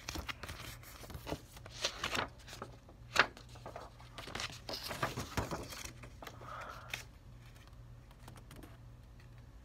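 Cardboard toy box and paper instruction sheet being handled: rustling and crinkling with scattered clicks and one sharp tap about three seconds in, quietening after about seven seconds.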